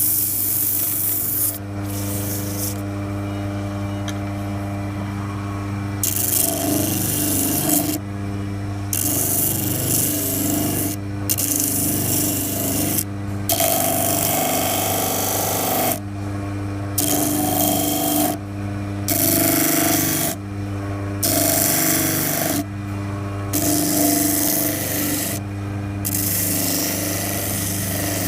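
Disc sander running steadily while a Richlite knife handle is pressed to the disc in repeated passes. Each pass lasts a second or two and gives a harsh grinding hiss over the motor's hum.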